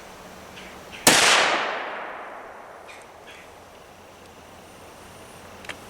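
A single shot from a Henry H015-308 single-shot rifle chambered in .308, fired with light loads: one sharp, loud report about a second in that rolls away over roughly a second. A faint click near the end.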